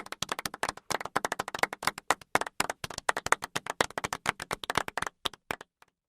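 Golf clap from a large crowd: many people clapping politely, dense at first, then thinning to a few last claps and stopping just before the end.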